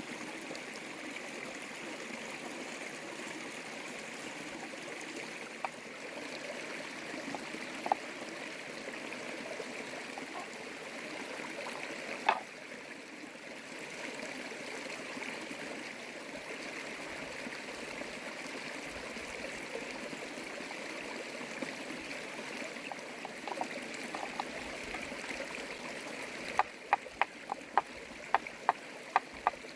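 Steady rushing hiss of flowing stream water. A few scattered clicks, then a quick run of sharp taps near the end, about three a second.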